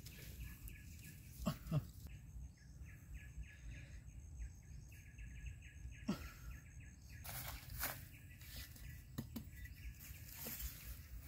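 Quiet outdoor ambience. A bird calls in a quick, repeated series of chirps for several seconds, and a few soft knocks and rustles come in between.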